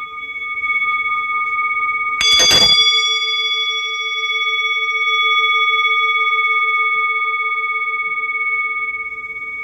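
Singing bowl ringing steadily, with a slow wobble in its low hum. A little over two seconds in, a fresh strike adds bright high ringing that fades over a few seconds while the bowl's steady tones sound on.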